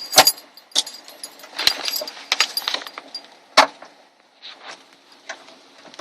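Irregular sharp metallic clicks, clinks and rattles of parts and tools being handled against a car door's inner frame as a part is positioned over the window track. The clinks are loudest and most frequent in the first four seconds and fainter after that.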